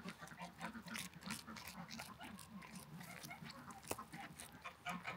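A cat chewing dried minnows: a quick, uneven run of small crisp crunches.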